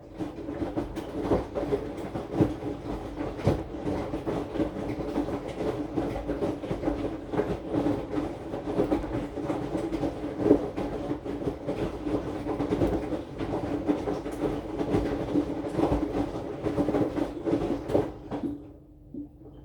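AQUA AQW-DX12M drum washing machine turning its drum during the wash: a steady motor hum with the laundry tumbling and knocking inside. It starts suddenly, runs for about nineteen seconds and stops near the end, picked up from on top of the machine's casing.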